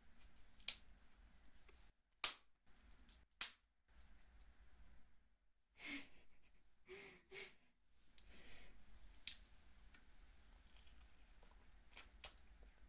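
Snow crab leg shells snapped apart by hand at the joints: a few sharp, separate cracks, the loudest two about two and three and a half seconds in, with softer shell clicks later as the meat is pulled out.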